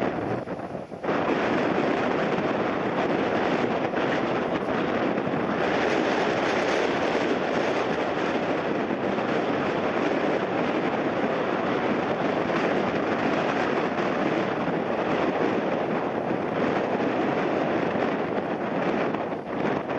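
Jet airliner's engines running loud as it passes close on its landing. The sound starts suddenly about a second in, holds steady, and drops away near the end.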